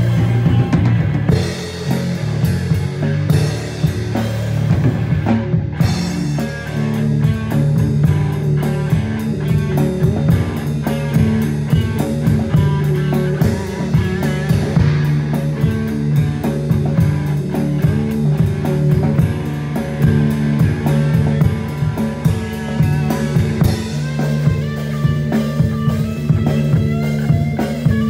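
Rock music with a drum kit keeping a steady beat under guitar and sustained bass notes.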